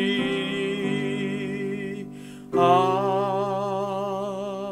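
Hymn singing with instrumental accompaniment, holding long closing notes of the hymn: a sustained chord that fades away, then a new chord with a wavering sung note about halfway through.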